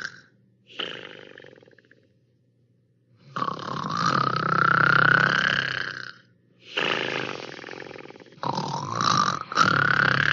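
Snoring in drawn-out breaths: a short snore about a second in, a long one from about three to six seconds in, then two more back to back from about seven seconds on.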